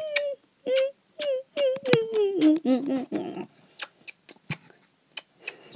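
A voice humming and singing short wordless notes that step down in pitch, with a wobbling run near the middle. Then it goes quiet apart from scattered clicks of the phone being handled.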